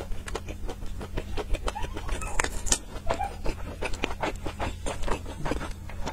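Close-miked eating sounds as a chili-oil-dressed steamed bun is bitten and chewed: a quick, uneven string of small wet clicks and lip smacks, over a steady low hum.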